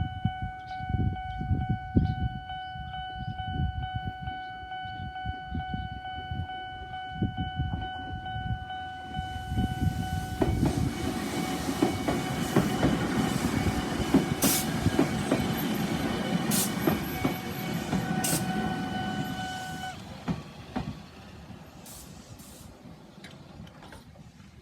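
Japanese level-crossing alarm sounding a single steady electronic tone while a Toyohashi Railway Atsumi Line train passes over the crossing. The train's running noise swells from about nine seconds in, with a few sharp clicks at its loudest. The alarm cuts off about twenty seconds in and the train noise fades.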